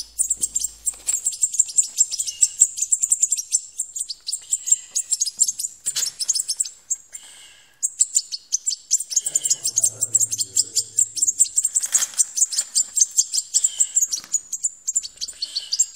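European goldfinch chicks chirping in a rapid, high-pitched stream of begging calls while being hand-fed from a syringe, with a short break about seven seconds in.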